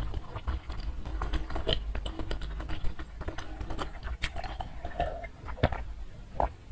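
Close-miked chewing of a mouthful of food, with many small wet mouth clicks and crackles. In the second half she sips and swallows water from a glass.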